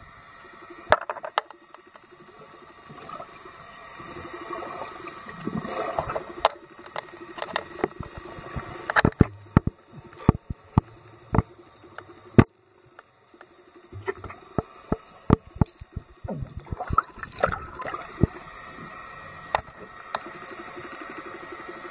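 Underwater recording: a gurgling wash of water that swells and fades twice, with many scattered sharp clicks and pops throughout.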